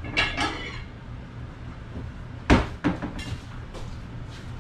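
Kitchen cabinet opened and a plate lifted out with a brief clatter of stacked dishes, then a sharp knock about two and a half seconds in with a lighter one just after, as of the cabinet door shutting.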